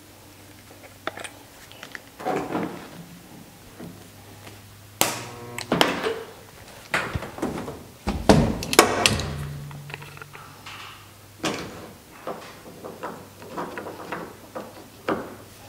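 A run of separate clicks, knocks and clunks as a stud welder gun and a stud lever are worked on the steel roof of a 1966 Mustang, the loudest about five seconds in and again around eight to nine seconds, over a faint steady low hum.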